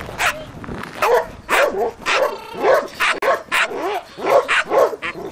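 Dobermann barking repeatedly, about two barks a second, at a decoy teasing it with a burlap sack during bite-work training.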